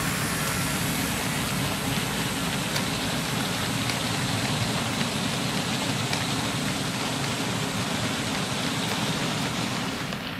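Model freight train running past close by: a steady mechanical rattle and whirr of the model locomotives and many wagon wheels rolling on the track, with small scattered clicks. The sound eases near the end.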